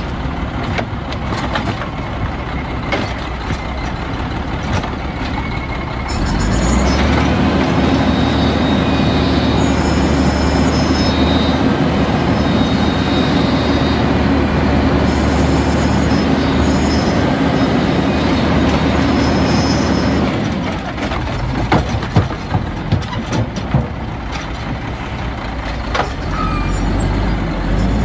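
Automated side-loader garbage truck's diesel engine and hydraulics working the lift arm to pick up and dump a cart. The engine revs up about six seconds in and holds a steady higher drone while the arm cycles, drops back to idle about twenty seconds in, with several knocks as the cart is set down, then rises again near the end.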